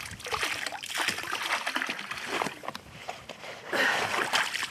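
Water splashing and running off a soaked fabric carp sling as it is lifted out of the lake, in uneven gushes, with a louder rush near the end.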